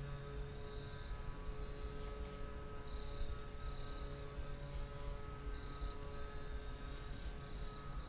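Quiet woodland ambience: a faint steady low hum, with a high insect trill that comes and goes every couple of seconds.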